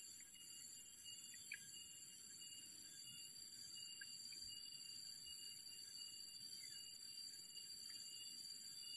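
Near silence: a faint, steady, high-pitched chorus of insects, with a few faint short chirps.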